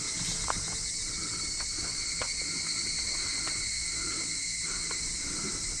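Steady high-pitched chorus of insects, with a few faint sharp clicks scattered through it.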